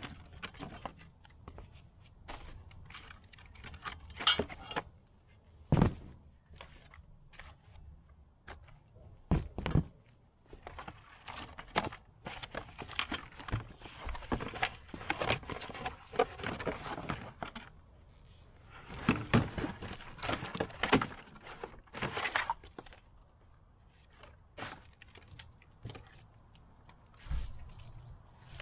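Cart parts and packing being handled: cardboard and plastic wrapping rustling and crackling in long stretches, with scattered sharp knocks and clinks of loose metal parts being picked up and set down.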